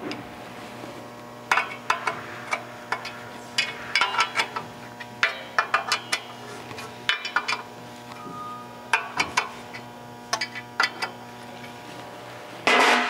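Irregular bursts of light metallic clinking and clicking as hand tools and parts are handled at a clutch pressure plate being bolted to the flywheel, over a steady low hum. A louder rattle comes right at the end.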